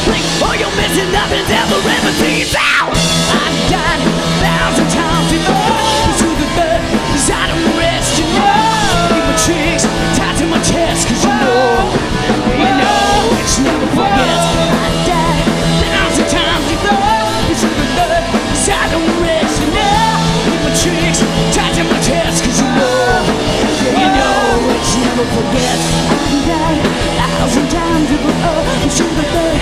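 Glam-punk rock band playing live, with a singer's yelled vocals over the full band. The band cuts out for an instant about three seconds in, then carries on.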